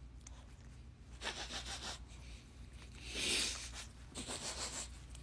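Quiet, close-up sniffing as a person sniffs a small dog's face: a few soft sniffs, the clearest about three seconds in.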